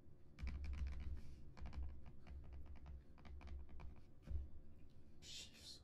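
Fingertips tapping and scratching on a cellophane-wrapped cardboard box: a run of quick, light taps and scrapes with soft dull thuds, one sharper knock about four seconds in, and a short hiss near the end.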